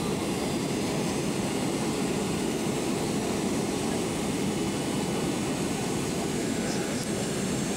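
Steady cabin noise of a Boeing 767-300ER on final approach, heard from a window seat over the wing: jet engine and airflow noise, mostly low in pitch and unchanging.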